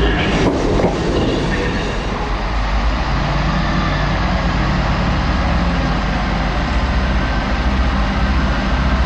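Diesel multiple unit running slowly into a station platform, its underfloor diesel engines giving a steady low drone. In the first second or so a broader rail rumble dies away before the engine note settles in.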